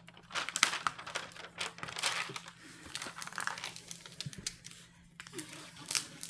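Plastic release film on a diamond painting canvas crinkling and crackling as it is peeled back and handled, busiest in the first half, then quieter, with one sharp crackle near the end.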